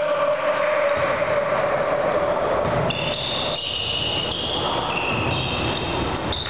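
Volleyball rally heard in a reverberant sports hall: the ball being struck and players moving on the wooden court, over a steady background din.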